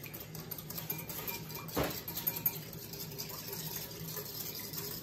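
A utensil stirring a thin dressing in a small glass bowl: soft, liquid stirring with faint light clinks against the glass, and one short knock about two seconds in. A steady low hum runs underneath.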